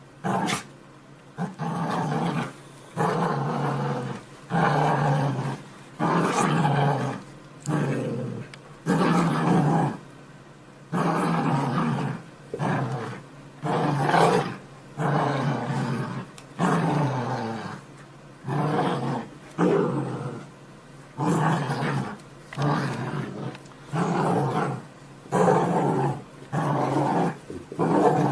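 Dog growling over and over in short bursts, roughly one every second or two, while playing tug with a plush toy.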